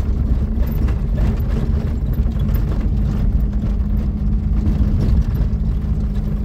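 Car driving along: a steady engine drone over continuous low road rumble.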